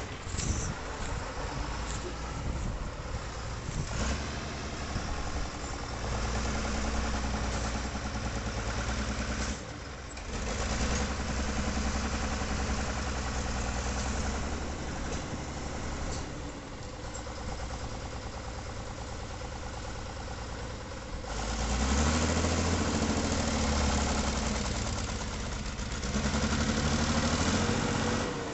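Lamborghini 956 diesel tractor's engine working hard as it drives over rough forest ground on chained tyres, its note rising and falling with the load. It is loudest in the last quarter, with a short lull a third of the way in.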